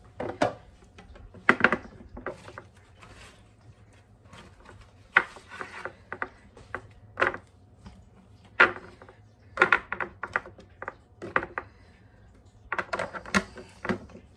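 A scattered run of light clicks and knocks: celery sticks being packed into clear plastic storage containers and the containers and lids being handled.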